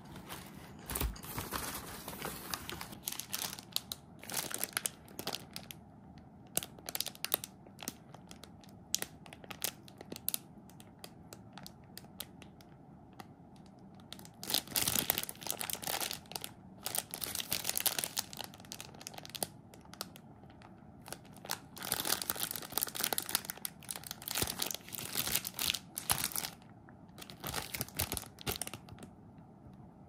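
Plastic wrapper of a convenience-store curry bread crinkling and being torn open, in short irregular bursts that grow louder in the second half.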